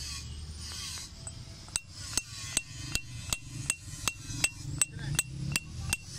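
Hammer driving a steel chisel into the inside of a stone mortar, dressing the bowl by hand: a steady run of about a dozen sharp metallic taps, between two and three a second, each with a short ring. The taps begin about a second and a half in, after a low rumble dies away.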